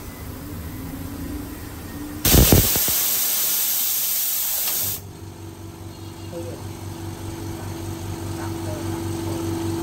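Compressed air venting with a loud hiss for about three seconds, starting about two seconds in and cutting off suddenly. An air compressor's motor then starts and runs with a steady hum.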